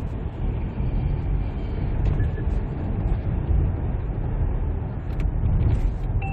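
Steady low rumble of road and engine noise inside a moving car's cabin while driving on a highway, with a few faint clicks near the end.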